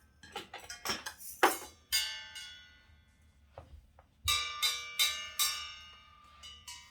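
A toddler's sticks striking a ringing metal percussion piece. A few dull knocks come first, then a struck note that rings on about two seconds in, and a quick run of four ringing strikes from about four seconds in.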